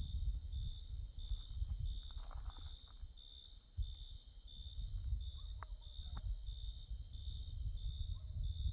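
Night insects, crickets, chirping in a steady chorus: one chirping about twice a second and another pulsing rapidly higher up, over a low rumble.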